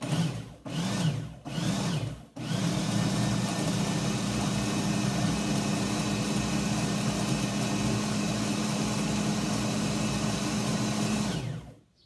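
Countertop food processor pulsed in three short bursts, its motor spinning up and down each time, then run steadily for about nine seconds before cutting off near the end. It is combining a dry mix of flour, cornmeal, chopped cranberries and crunchy peanut butter into a dough.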